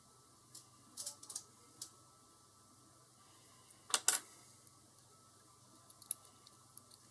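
Small brass padlock parts being handled on a desk: light metallic clicks and taps, with a louder clatter about four seconds in as pieces are set down, and a few soft clicks near the end.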